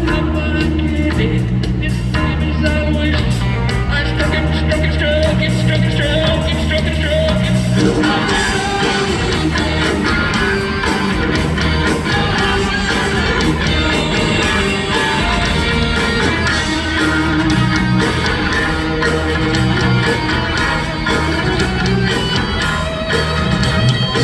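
Live rock band playing loudly through a concert PA. A repeating low bass riff leads for the first eight seconds or so, then the music turns denser and fuller for the rest.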